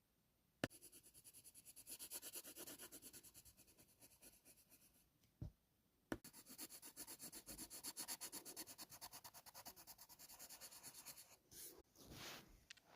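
Rapid rhythmic rubbing or scratching strokes, several a second, in two runs of about five seconds each with a sharp click between them.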